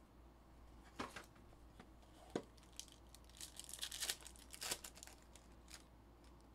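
Foil trading-card pack wrapper being torn open and crinkled, faint, with a few light clicks of packs and cards being handled. The crinkling is thickest about three to five seconds in.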